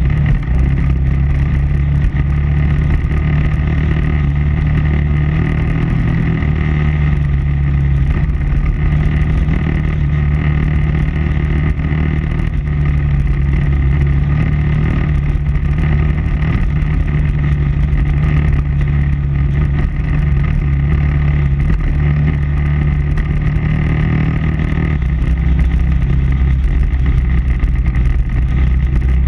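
KTM 990 Adventure R's V-twin engine running at fairly steady riding revs, with only small changes in pitch.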